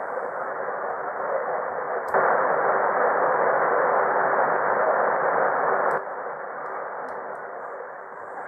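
Shortwave receiver static (an Icom IC-R71E) heard through a bhi NEIM1031 DSP noise-cancelling unit, as an even hiss with no signal on it. About two seconds in, a click, and the hiss jumps louder; about six seconds in, another click, and it drops back, as the unit's noise-reduction setting is switched.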